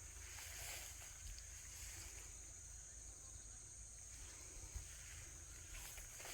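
Faint, steady high-pitched buzzing of insects in summer, with a low fluttering rumble underneath.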